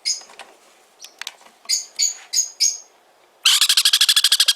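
Sun conure chicks calling: a string of short, high chirps, then about a second of loud, rapid stuttering chatter near the end.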